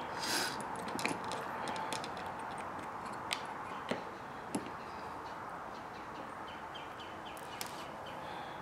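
Scattered light clicks and taps of small aluminium and plastic RC axle parts being handled and fitted together, over a steady background hiss. There are about half a dozen sharp clicks, the last two close together near the end.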